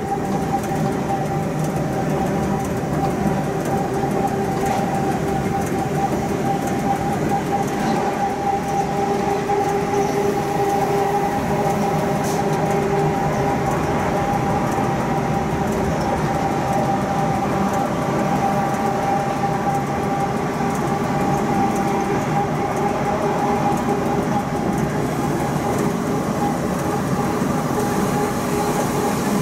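Cab of a Rhaetian Railway Ge 6/6 II electric locomotive at speed: steady running noise of wheels on metre-gauge track, with a constant two-note hum from the locomotive and a few faint clicks.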